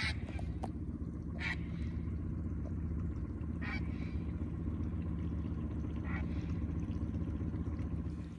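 Great blue herons giving harsh, croaking squawks in flight, four short calls spaced a second or more apart. Under them runs a steady low rumble.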